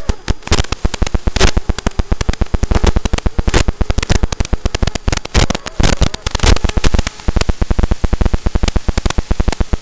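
Crackling static from an analog FPV video receiver's audio channel: a dense, irregular stream of loud pops and hiss with a faint buzz beneath.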